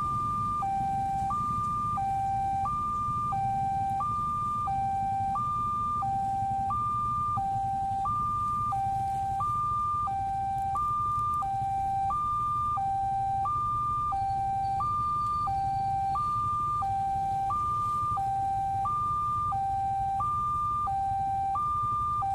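Railway level-crossing warning alarm: an electronic two-tone signal alternating steadily between a lower and a higher tone, each held about two-thirds of a second, sounding while the crossing is closed for an approaching train. A low rumble runs beneath it.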